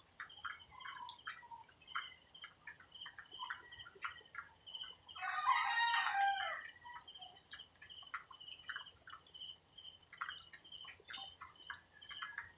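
A rooster crows once, about five seconds in, lasting about a second and a half. Many short bird chirps and a steady, high pulsing note sound throughout.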